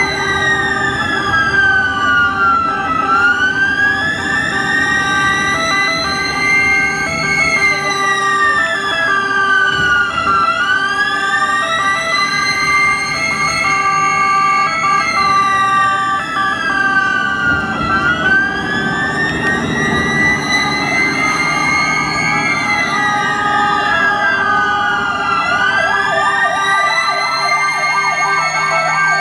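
Several ambulance sirens sounding at once in a convoy. One slow wail rises and falls about every seven and a half seconds over steady tones, and a faster warble comes in during the second half.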